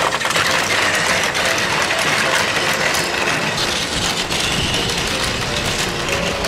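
Battery-powered Plarail toy Shinkansen trains running on plastic track: a steady whirring of the small motors with a dense clicking rattle of wheels over the track.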